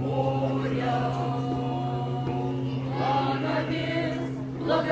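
Choral music: voices singing over a steady, held low note.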